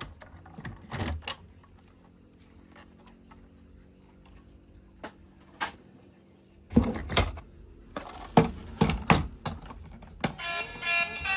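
Scattered clicks and knocks of objects being handled, with long quiet gaps and a louder cluster of knocks past the middle. Music starts again near the end.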